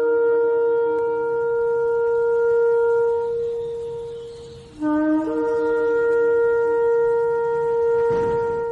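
Two long shofar blasts, each opening on a brief lower note that jumps up to a held higher note. The first fades out about four and a half seconds in, and the second starts right after and holds to the end.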